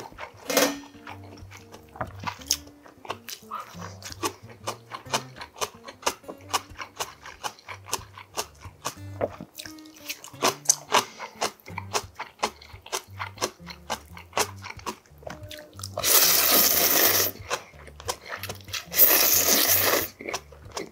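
Close-miked chewing full of small wet mouth clicks over soft background music, then two loud slurps of ramen noodles, each about a second and a half long, about three seconds apart.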